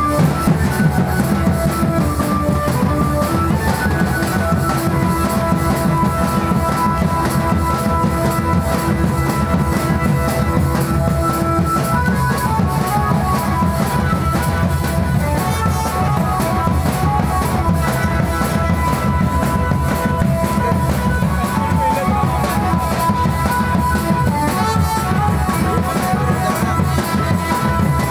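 Music with a steady, driving drum beat and a melody of long held notes above it.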